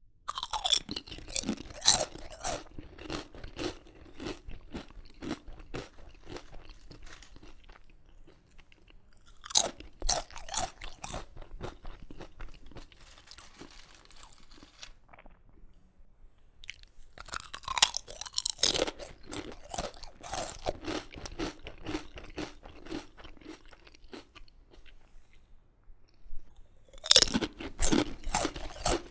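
Potato crisps being bitten and chewed close to the microphone: four rounds of loud crunching, each starting with a sharp bite and thinning into quieter chewing.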